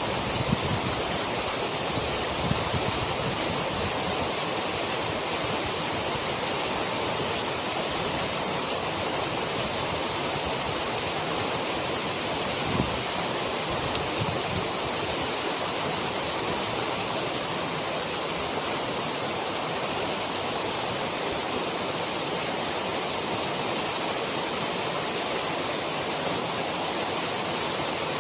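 Loud, steady rush of a waterfall, with a few brief low knocks about halfway through.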